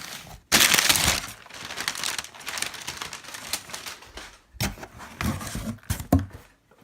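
Package being torn open by hand: a loud rip about half a second in, then crinkling and rustling of the wrapping, with a few sharp knocks near the end.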